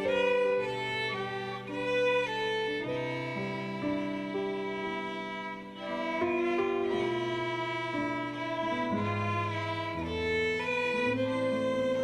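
Solo violin playing a melody over ensemble accompaniment, with a lower line of sustained bass notes changing every second or two.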